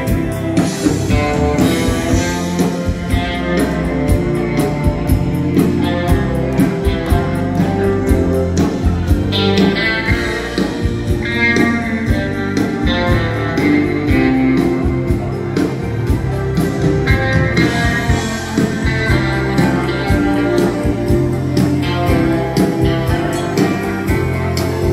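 Live dance-band music: an instrumental passage of a song played on electric guitar, keyboards and drums, with a steady dance beat and no singing.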